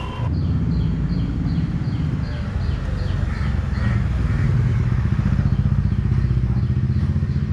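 Small motorcycle or scooter engine idling steadily close by, with a fast low pulsing throb. During the first few seconds, a rapid run of short high chirps, about three a second, sits above it.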